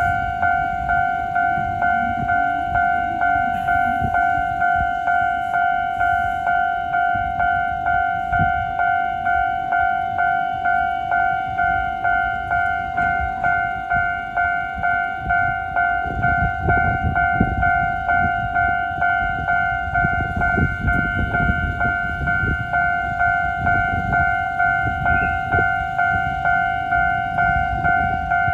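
Japanese railway level-crossing alarm ringing steadily: an electronic two-tone ding about twice a second while the barrier is down, warning that the crossing is closed for a train. A low rumble swells underneath in the second half.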